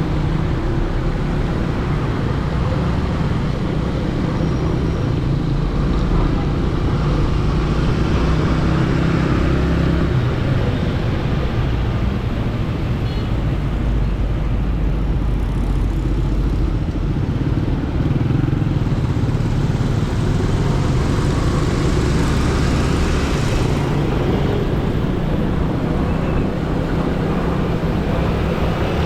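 Steady road traffic of cars and motorcycles, engines humming under a continuous hiss, with a louder hiss swelling in the second half and stopping about two-thirds of the way through.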